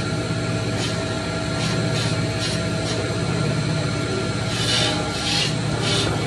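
Wood copy lathe running with a steady motor hum while its cutters bite into a spinning square wooden blank. The cutting gives repeated rasping strokes that become louder and closer together, about two a second, from about four and a half seconds in.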